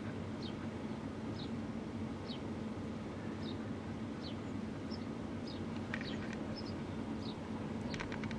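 A small bird repeating a short, high, downward-slurred chirp about once a second over a steady low rumble; a few sharp clicks near the end.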